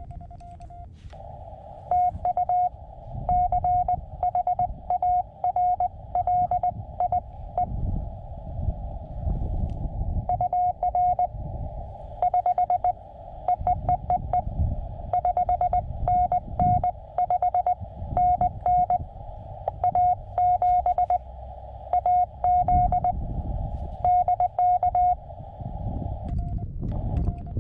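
Morse code (CW) from a portable ham radio's speaker: a single steady beep keyed in quick dots and dashes over the hiss of the receiver's narrow filter, stopping near the end.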